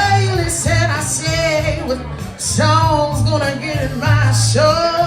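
A song playing: a singer's voice holding and bending long notes, without clear words, over a steady bass line.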